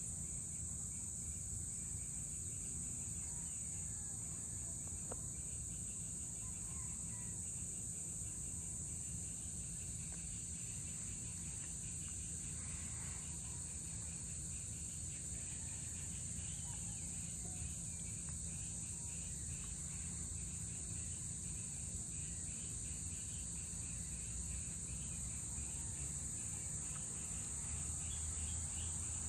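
A steady, high-pitched chorus of insects at dusk, continuous and unbroken, with faint scattered chirps and a low steady rumble underneath.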